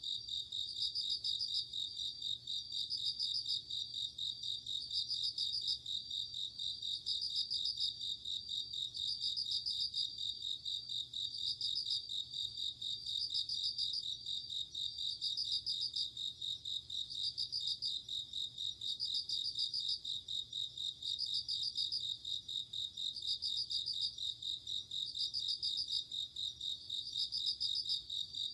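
Japanese bell crickets (suzumushi) singing: a steady high chirring with a louder, ringing pulsed phrase repeated about every two seconds.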